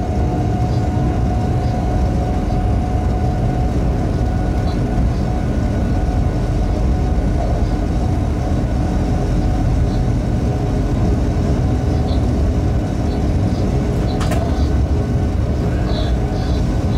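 Steady running noise of a freight train at speed, heard from the locomotive cab: a low, even rumble of wheels on rail with a faint steady hum over it. One sharp click sounds near the end.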